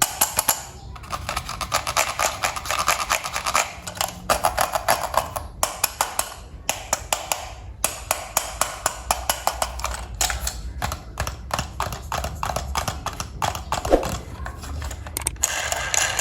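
Small plastic toy train parts being handled and fitted together: a quick, irregular run of light clicks and taps over faint rustling.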